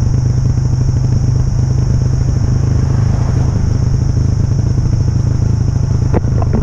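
A motorbike being ridden along a road at steady speed. Its engine and riding noise make a heavy, steady low rumble that holds level throughout.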